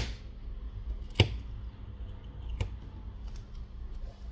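Three sharp clicks about a second and a half apart, with a few fainter ticks near the end, from hands handling a phone's opened internals, removed battery and adhesive strips on a work mat, over a low steady hum.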